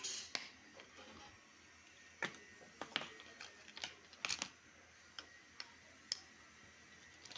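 Irregular small sharp clicks and taps, about a dozen, from a wristwatch and small tools being handled during a repair.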